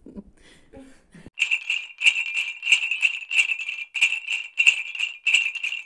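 Jingle bells shaken in a steady rhythm, about three shakes a second, starting about a second and a half in after a few soft rustles.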